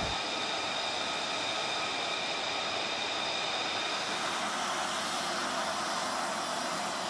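Jet aircraft engine running steadily: an even rushing noise with several high, steady whining tones.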